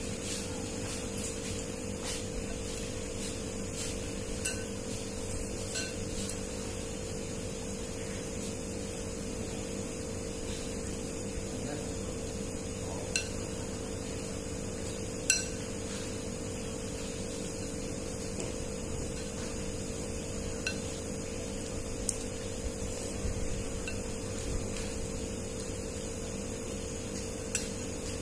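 Chopsticks and a spoon clicking now and then against a noodle bowl, the sharpest click about halfway through, over a steady hum.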